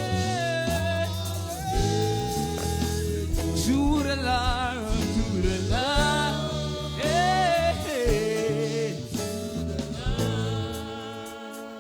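Gospel worship music: a voice singing long, wavering, melismatic lines over instrumental accompaniment with a steady bass.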